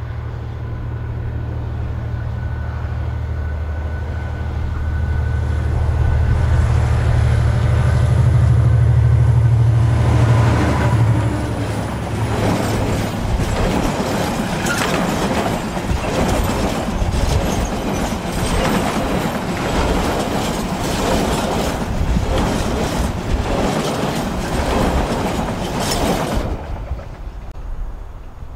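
Irish Rail 071 class diesel locomotive, with its EMD V12 two-stroke engine, approaching and passing, its steady engine note growing louder for the first ten seconds or so. Then a long rake of empty timber wagons rolls by, wheels clattering and knocking over the rail joints, until the sound drops away suddenly near the end.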